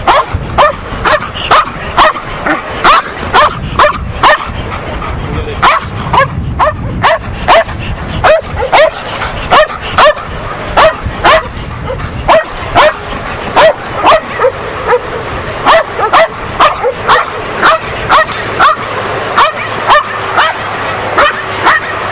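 A Belgian Malinois barking at a padded decoy in sharp, evenly spaced barks, about two a second, without a break. This is the dog holding the decoy at bay by barking, as in ring-sport guard work.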